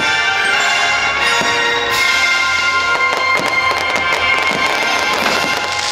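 Christmas fireworks-show music, with firework bursts popping and crackling over it. The pops come thicker from about a third of the way in.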